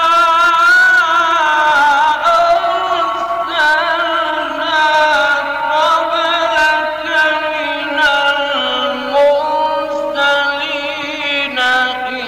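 A solo male voice reciting the Quran in the melodic mujawwad style, drawing a syllable out into long ornamented notes with a wavering vibrato. The melody stays high, then steps down to a lower pitch about eight seconds in.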